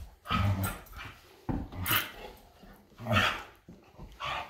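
Dogs barking in rough play, a yellow Labrador retriever and a red spitz-type dog: four short bursts about a second apart.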